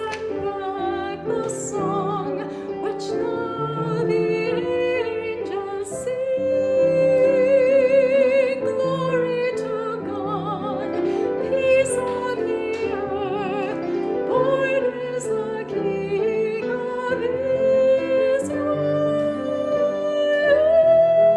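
A classically trained solo voice singing with vibrato over piano accompaniment, holding a long note near the end.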